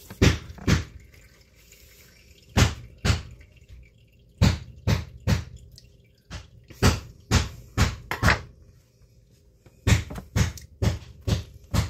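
A series of short, sharp knocks in runs of two to six, about two a second, with pauses between the runs.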